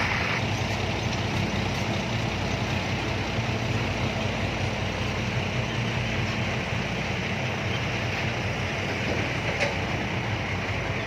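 Six-wheel dump truck's diesel engine running steadily, a constant low rumble with road or mechanical noise over it.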